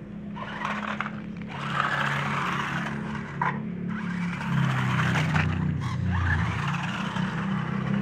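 Toy RC 4x4 rock crawler driving: the whine of its electric motors and gears dips and rises in pitch with the throttle, over the scrape and rattle of its tyres on gravel and concrete.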